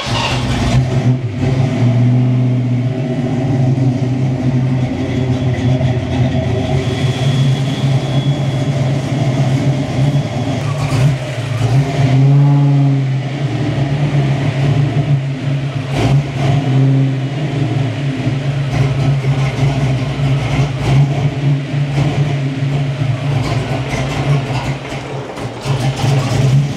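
Fox-body Ford Mustang's fuel-injected V8 running at an uneven idle, its speed wavering and dipping and recovering about halfway through. The owner takes the rough idle for a vacuum leak, the engine sucking air from somewhere.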